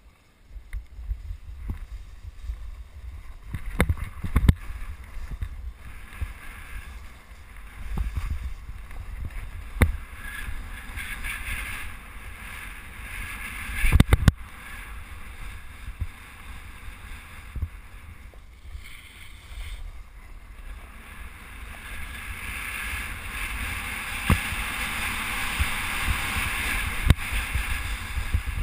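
Wind buffeting the microphone of a camera worn by a rider sliding down a snow slope, with the scraping hiss of snow under the rider that grows stronger toward the end. Scattered knocks from bumps, and one loud sharp knock about 14 seconds in.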